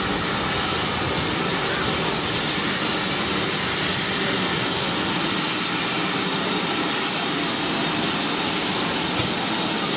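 GWR 5600-class 0-6-2T steam tank locomotive No. 5643, with a second steam locomotive coupled behind, moving slowly past with a steady hiss of steam.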